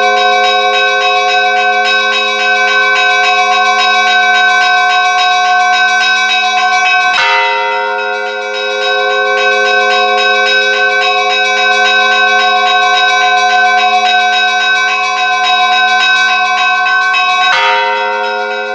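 Church bells ringing: smaller bells struck in a fast, even pattern over a steady ring of many tones. A heavier bell strikes twice, about ten seconds apart.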